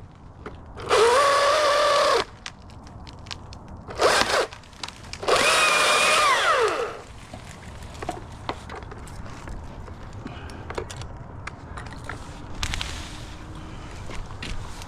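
Chainsaw revving in three bursts as a limb is cut: a long one about a second in, a short one around four seconds, and another from about five to seven seconds, each rising in pitch and falling away as the throttle is released. After that it is quieter, with scattered light knocks.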